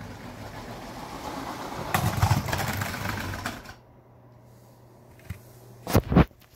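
Motorised Lego train running along plastic track, its hum rising as it nears, then ramming a Lego tow truck about two seconds in: a burst of plastic clattering as the truck is knocked over, lasting over a second, in a crash that partially derails the train. Two heavy thumps near the end.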